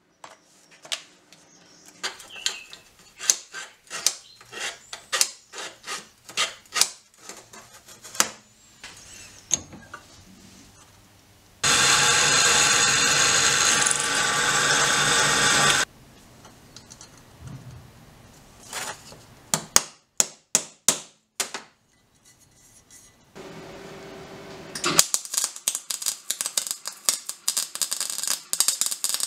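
A series of workshop sounds on steel: a long run of sharp taps and clicks, then a drill press drilling steel for about four seconds. More scattered clicks and a short hum follow, then a MIG welder crackling with sparks near the end.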